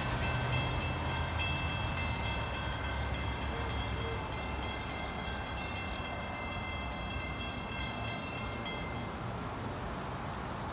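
Low rumble of an approaching ALP45DP-hauled multilevel train, with a steady high-pitched ringing tone over it that stops abruptly about nine seconds in.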